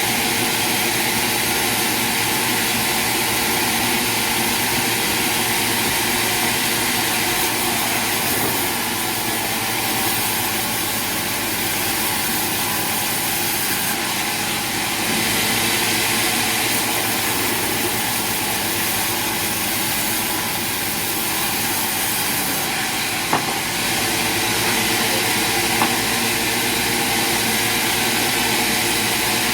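Sawmill machinery running steadily with a constant mechanical drone and hiss, broken by two brief sharp clicks near the end.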